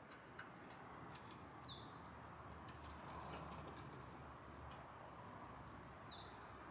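Faint bird call heard twice, about four seconds apart, each a quick high note gliding downward, over a few scattered faint clicks.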